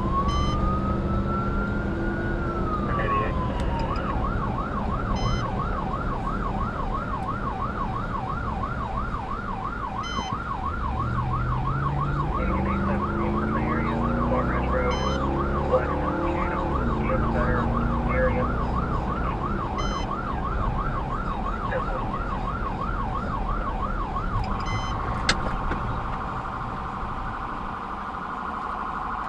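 Electronic siren of a responding fire department vehicle heard from inside the cab: a slow rising and falling wail, then a fast yelp warbling about three times a second for some twenty seconds, switching near the end to a steady tone.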